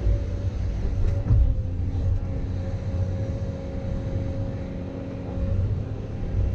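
Diesel engine of heavy earthmoving equipment running steadily with a low rumble while working dirt on a slope.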